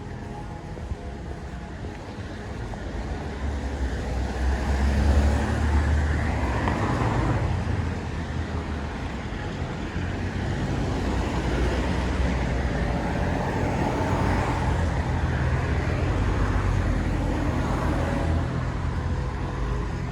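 Road traffic on wet asphalt: cars passing with the hiss of tyres on the wet road over a low engine rumble. It swells loudest about five seconds in and stays busy through the later part.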